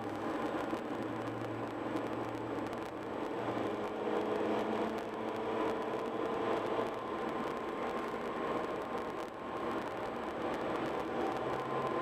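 Steady road noise of a car driving at highway speed, heard from inside the cabin: tyre and wind noise with a low engine hum that drifts slightly in pitch.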